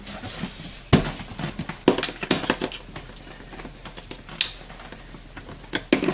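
Plastic dishwasher parts being handled and snapped back into place: a handful of separate sharp clicks and knocks, the loudest about a second in and another just before the end.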